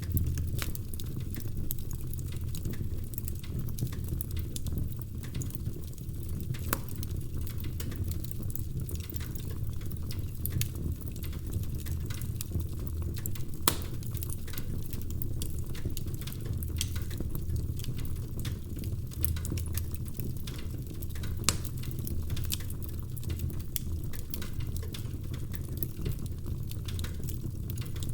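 Wood fire crackling in a fireplace: a steady low rumble of burning logs with frequent small pops and snaps, one louder pop about halfway through.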